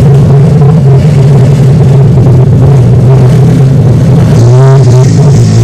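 ATV (quad) engines running loud and steady, one revving up with a rising pitch about four and a half seconds in.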